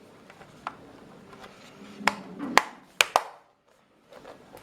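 Plastic RAM access cover being fitted back onto the underside of an ASUS X53U laptop: a few light taps, then four sharp plastic clicks about two to three seconds in as the cover is pressed into place.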